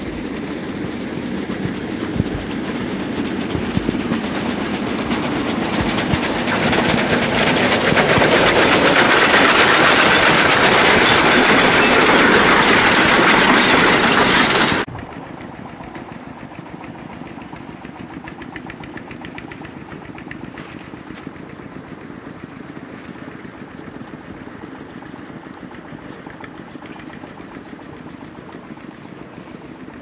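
A C2 narrow-gauge steam locomotive draws near and passes. Its sound builds steadily and stays loud for several seconds, then cuts off abruptly about halfway through. After that comes a much quieter steady engine sound from a small farm tractor pulling a trailer.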